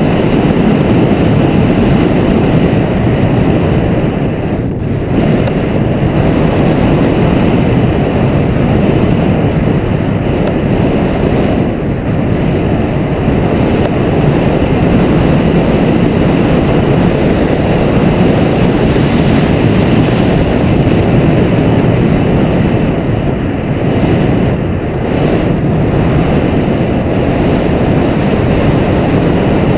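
Steady, loud rush of airflow buffeting the microphone of a camera mounted on a tandem hang glider in gliding flight.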